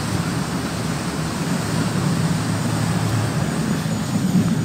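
Boat engine running steadily at speed, a low even hum under the rush of wind and spray from the hull cutting through choppy sea.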